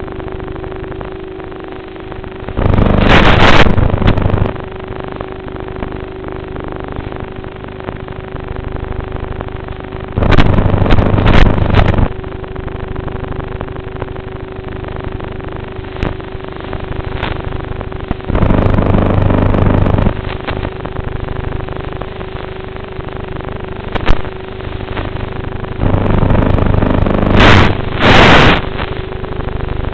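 Twin motors and propellers of a model Cessna in flight, heard from on board: a steady drone with one constant tone, swelling four times into a loud rushing surge that lasts one to two seconds each time.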